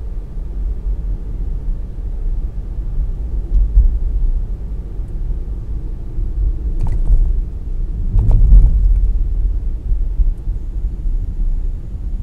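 Steady low rumble of a car driving along city streets: road and engine noise with some buffeting. It swells about eight seconds in, and a short, sharper noise comes just before that.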